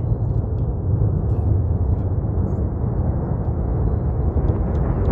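Falcon 9 first stage's nine Merlin engines heard as a steady, deep, crackling rumble from miles away during ascent.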